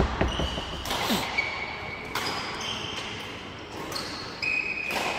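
Badminton rackets hitting the shuttlecock, several sharp hits a second or two apart, with sports shoes squeaking briefly on the hall floor between them.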